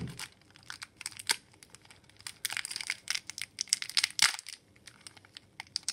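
Foil wrapper of a hockey card pack crinkling and tearing as it is opened by hand, in short irregular spells of crackle, loudest about the middle and again a little past four seconds.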